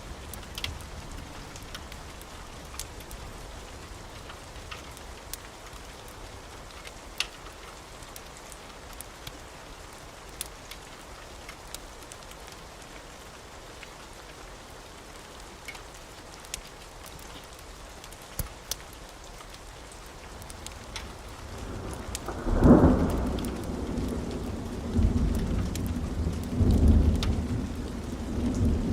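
Steady rain hiss with scattered sharp crackles. About three-quarters of the way through, a loud thunderclap breaks in and rolls on as deep rumbling thunder with a couple more swells.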